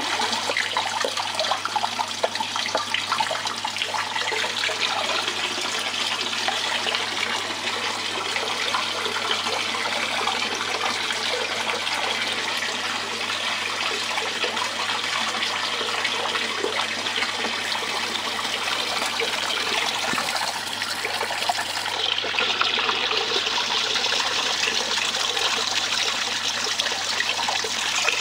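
Water running steadily over the mat of a DIY miller table, washing black sand concentrates along it. The flow grows a little louder and brighter about three-quarters of the way through.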